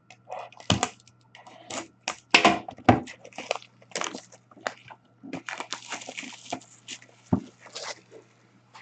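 Packaging of a hockey card box being torn open and crinkled by hand, in irregular crackly bursts, with a dull thump about seven seconds in.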